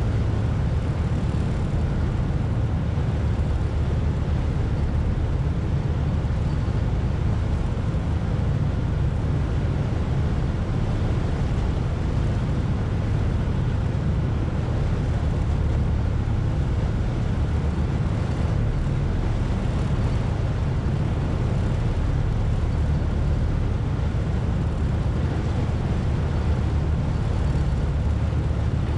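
The George Black ferry's engine running with a steady low drone under way across the river, with water and wind noise over it.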